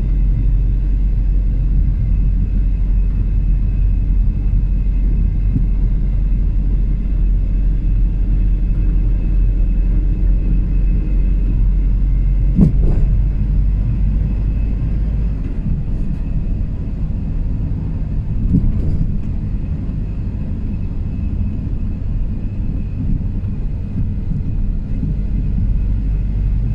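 Steady low rumble of a car driving along a country road, tyre and engine noise heard from inside the cabin. A short sharp knock sounds about thirteen seconds in, and a fainter one about five seconds later.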